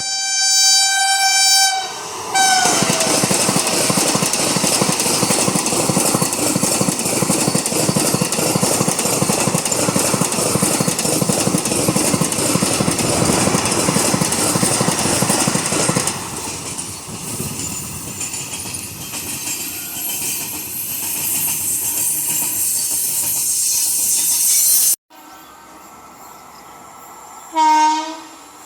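A locomotive horn blows one steady, shrill note, then a short blast that drops in pitch. A train then runs past at speed with its wheels clattering over the rail joints, loud for about a dozen seconds and then quieter. After an abrupt cut, a second short horn blast with a lower, wavering note sounds near the end.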